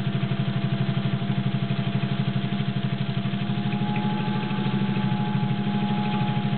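Singer 201-2 sewing machine, driven by its gear-driven potted motor, running steadily as the needle stitches through two layers of leather: a fast, even beat of the stitching under a steady motor whine.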